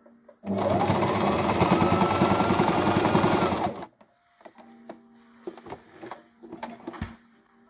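Electric sewing machine stitching in one burst of about three seconds: the motor whine rises as it speeds up, holds steady with the rapid needle rattle, then stops. Faint clicks and handling sounds follow.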